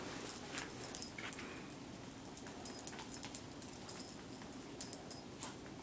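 A Portuguese water dog moving about close by: scattered light clicks and rustles.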